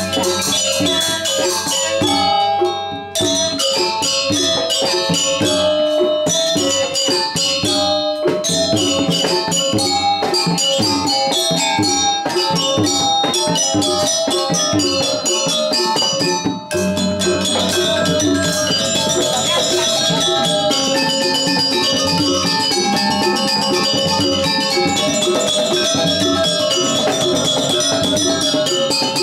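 Balinese gamelan pelegongan ensemble playing: bronze-keyed metallophones struck with mallets in fast, dense patterns over two kendang hand drums. The music breaks briefly about three seconds in and again just past halfway.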